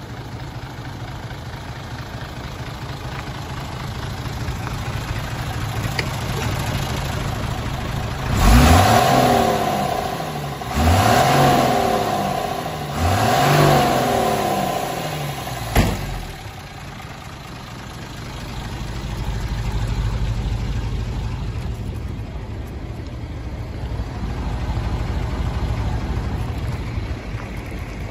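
Hino H07D inline-six diesel in a Hino Ranger truck idling, revved three times near the middle, each rev rising in pitch and falling back to idle. A single sharp knock follows the revs.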